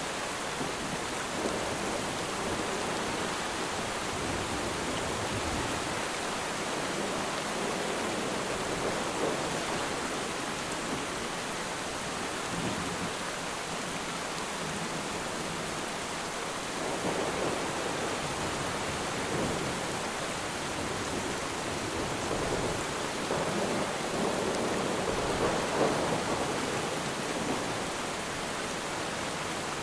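Steady rain falling on water, an even hiss with dense pattering. It swells louder twice, a little past halfway and near the end.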